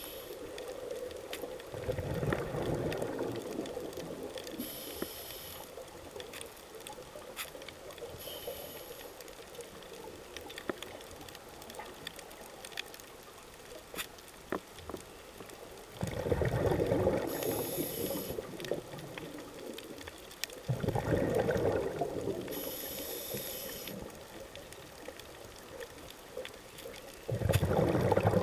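Scuba regulator breathing underwater: four gurgling bursts of exhaled bubbles, with short high hisses of inhaled air between them.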